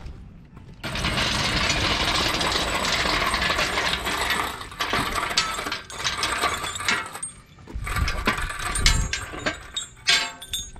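Rapid metallic ratcheting clatter, continuous for a few seconds, then breaking into shorter bursts with a few sharp clanks near the end.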